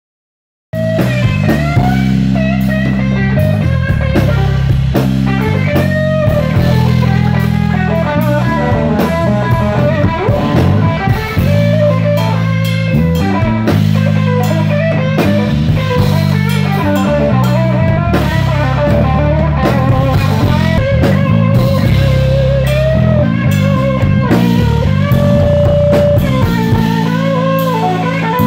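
Live blues-rock band: an electric guitar plays a lead line with bent, wavering notes over sustained bass notes and a drum kit, starting about a second in.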